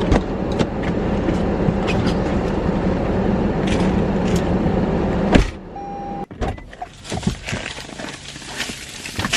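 Car cabin noise with a steady hum and a few light clicks, cut off by a loud clunk a little over five seconds in. After it the cabin is quieter, with scattered clicks and knocks and a brief beep.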